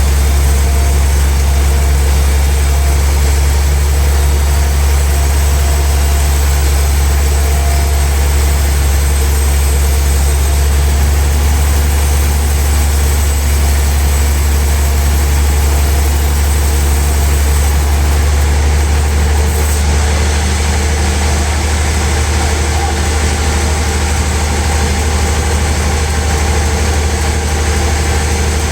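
Sawmill log saw machinery running with a steady, loud low hum and a hiss over it; the highest part of the hiss thins out about two-thirds of the way through.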